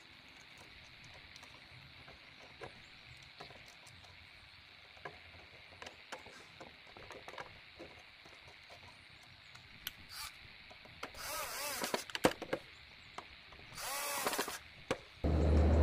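Small clicks and taps of metal parts being handled and fitted into a model truck's gearbox. Near the end come two short, loud noisy bursts, and just before the end a loud, steady low hum sets in.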